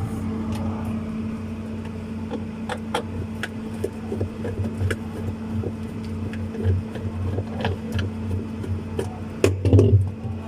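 Refrigerator running with a steady electrical hum, with scattered light clicks and knocks over it.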